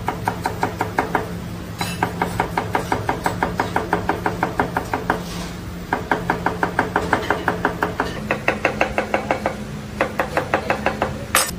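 Kitchen knife chopping quickly on a plastic cutting board, the blade knocking the board several times a second as onion, garlic and tomato are minced, in runs with short pauses between them.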